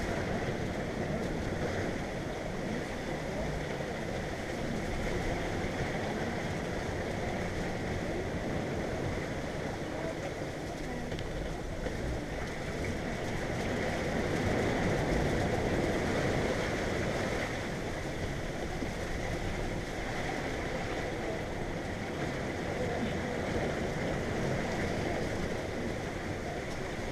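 Water rushing along the hull of a sailboat under way, with wind: a steady wash of noise that grows a little louder in the middle.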